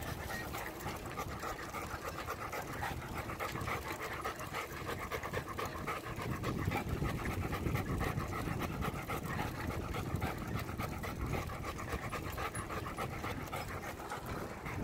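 A long-coated German Shepherd panting hard and steadily as it runs beside a bicycle.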